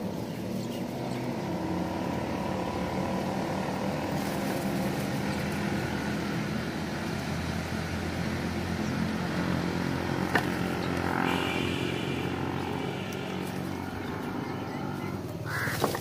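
A steady engine hum from a motor running somewhere off-picture, with a brief flutter of wings near the end as a crow takes off.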